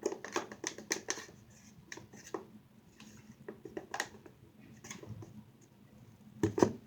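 Irregular small clicks and taps from handling the mixing bowl and ingredient containers, thickest in the first second and again about four seconds in, with a dull thump near the end.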